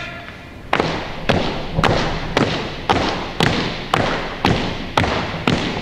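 Color guard marching in step across a hardwood gym floor: about ten evenly spaced footfalls, just under two a second, each echoing in the hall.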